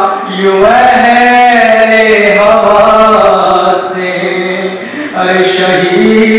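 A man's solo voice chanting a noha, a Muharram lament, in long melodic phrases with sustained held notes; the voice grows softer for a moment about four seconds in.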